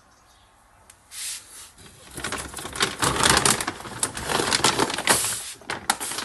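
A bag of dry cat food being shaken and rustled: a crackly, crinkling noise that starts about a second in and keeps going. It is the sound that calls the cats to be fed.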